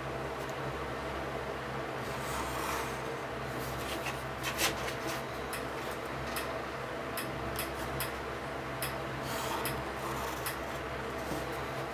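Pencil scratching on paper in short strokes as lines are drawn along a plastic ruler, with small clicks as the ruler is shifted, and one louder stroke about four and a half seconds in. A steady low hum lies underneath.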